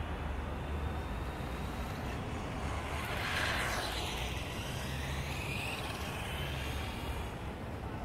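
A vehicle passing by, loudest about three and a half seconds in, over a steady low rumble of traffic.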